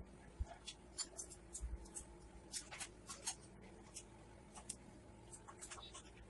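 Pencil scratching on drawing paper in short, irregular strokes, a few a second.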